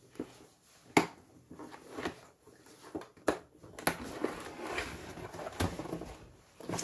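Cardboard box being opened by hand: a few sharp knocks and taps of the cardboard, and a stretch of scraping and rustling as the flap and lid are pulled open.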